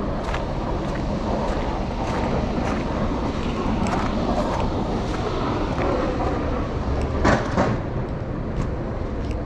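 A vehicle driving past on a snowy city street, its tyre noise swelling through the middle and fading, with footsteps in the snow now and then.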